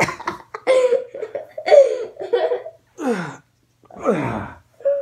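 A man and a boy laughing and coughing in short bursts, with two long falling vocal cries about three and four seconds in.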